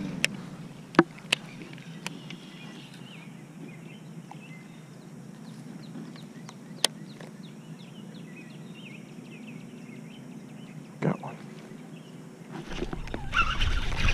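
Birds chirping in the background, many short quick calls. Sharp clicks stand out over them twice in the first second and a half and once at about seven seconds, with a thud near eleven seconds and louder rumbling handling noise in the last second or so.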